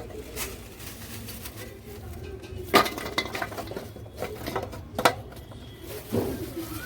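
Kitchen dishes and utensils clinking and knocking: a few sharp clinks, the loudest about three seconds in and again about five seconds in, with a softer knock near the end.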